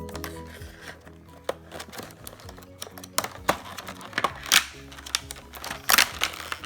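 Background music with sharp clicks and crinkles of toy packaging being opened and handled. The clicks are scattered, the loudest about four and a half and six seconds in.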